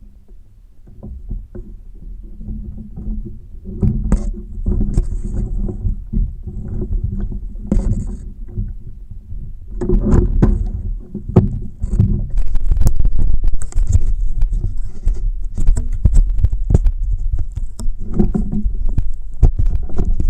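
Repeated knocks, bumps and scrapes on the plastic hull of a Wilderness Systems Recon 120HD fishing kayak over a low rumble as a large musky is handled in the landing net aboard. It starts quietly and grows much louder from about four seconds in.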